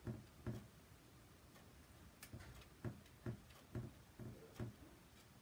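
Squeegee and hand working chalk paste over a silkscreen stencil transfer: an irregular series of about eight faint, soft knocks and rubs.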